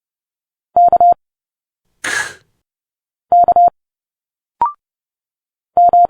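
Morse code letters keyed at 30 words per minute as a steady beep tone of about 700 Hz, in three quick groups of dits and dahs about two and a half seconds apart. About two seconds in comes a short hissing spoken consonant, the speech sound matched to the first letter. Near the end comes a brief rising blip.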